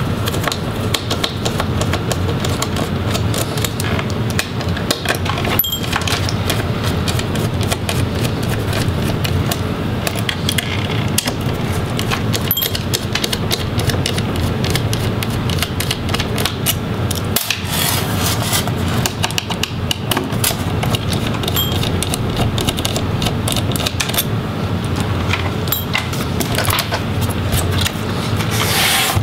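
A small Phillips screwdriver backing out the metal hinge screws of a Dell Inspiron 17 7778 laptop. Many small metallic clicks and rattles come from the screws, the steel hinges and the laptop's parts being handled.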